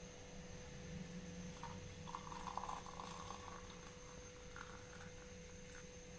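Tea pouring faintly through a metal mesh strainer into a mug, over a steady electrical hum.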